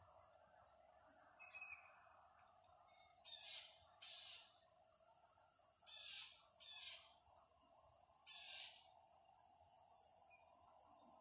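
Near silence: faint outdoor ambience with a steady hiss and a thin high whine that comes in about four seconds in. Two faint bird chirps sound early on, and later there are five short hissy bursts, in two pairs and then one single.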